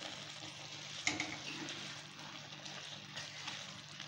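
A spatula stirring thick, moist wheat-rava upma in a kadai, with faint soft scraping and wet bubbling as the cooked semolina is turned over. A sharper scrape comes about a second in.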